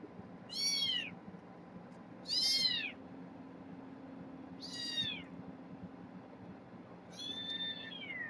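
Young kittens mewing: four short, high-pitched mews about two seconds apart, each falling in pitch, over a faint steady low hum.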